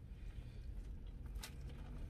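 Quiet eating of salad with plastic forks from plastic bowls: a steady low hum underneath, and a sharp click about a second and a half in.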